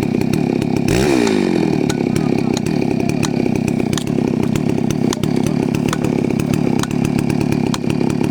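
Chainsaw running hard and steady, cutting into a tree, with a brief dip in engine pitch about a second in.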